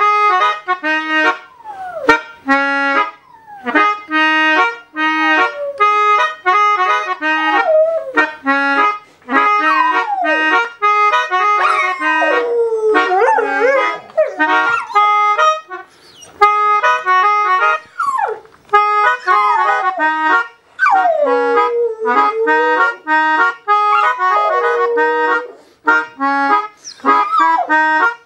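Melodica playing a reggae tune in short, choppy chords, with a dog howling along in long rising and falling glides that are strongest around the middle and near the end.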